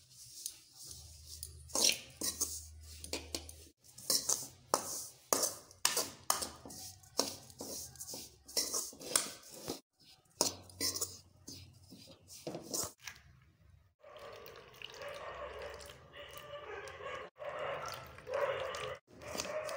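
Steel spoon scraping and clinking against an aluminium kadai as grated coconut is stirred and turned, in quick irregular strokes. For the last six seconds or so the strokes give way to a steadier, denser scraping noise.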